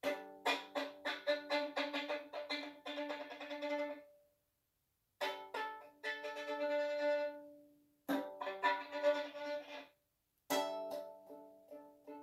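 Background music: a string-instrument tune of quick notes, played in short phrases broken by brief silences.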